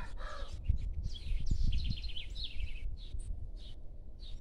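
The tail of a rooster's crow fades out in the first half second. Small birds then chirp in a quick run of high notes between about one and three seconds in, with a few single chirps after that, over a low rumble.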